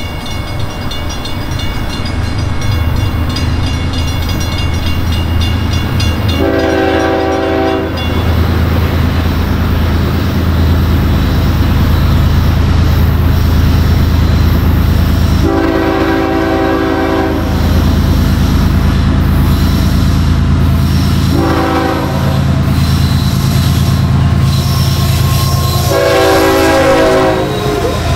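Diesel freight locomotive sounding its horn in the grade-crossing pattern: two long blasts, a short one and a final long one, over the steady low rumble of the engine and train.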